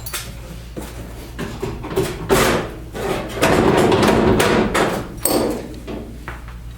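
Metal knocking and clattering while a truck fender is worked on: scattered sharp knocks, then a louder rattling clatter lasting about two seconds around the middle.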